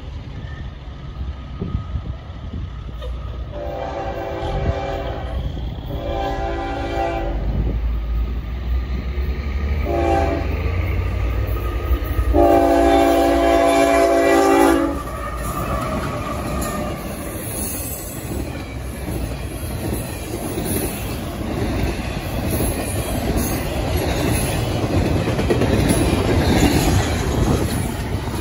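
Diesel freight locomotive's multi-chime air horn sounding long, long, short, long, the grade-crossing signal, as the train approaches. The locomotive's engine then rumbles past, followed by the steady rolling clatter of intermodal well cars over the rails.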